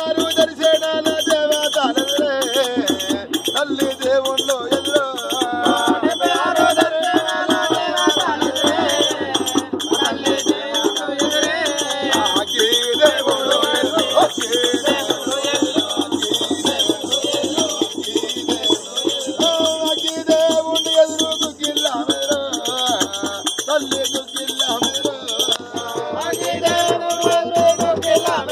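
Telugu folk devotional singing to Yellamma: a male voice sings over a small hand drum, with ankle bells and small hand-held percussion jingling in a steady rhythm.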